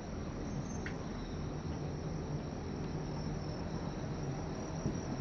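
Night insects, crickets, chirring steadily in a high-pitched band over a low, steady background hum, with a brief faint thump near the end.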